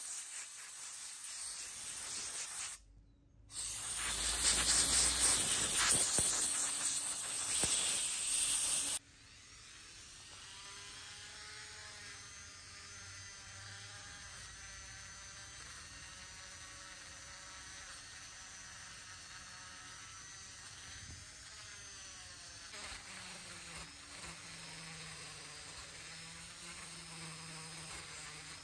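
A loud, rough hissing noise for about the first nine seconds, broken briefly near three seconds. After that a small handheld rotary tool runs steadily with a thin buzzing whine whose pitch wavers slightly, as its small wheel scours rust off the steel frame of an old coil tattoo machine.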